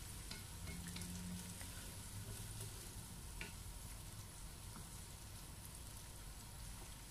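Faint sizzling of pork belly simmering in soy-sauce broth in a nonstick pan, stirred with a wooden spatula, with a few light taps of the spatula against the pan.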